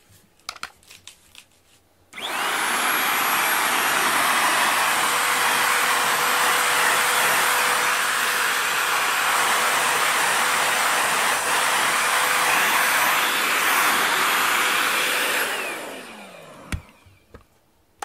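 Corded handheld vacuum cleaner switched on about two seconds in, running steadily with a thin high whine over its roar, then switched off near the end, its motor winding down with falling pitch. A few light handling clicks come before it starts.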